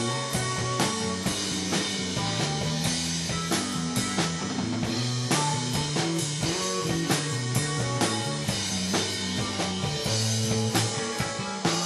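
Live rock band playing an instrumental passage: two electric guitars over a drum kit keeping a steady beat.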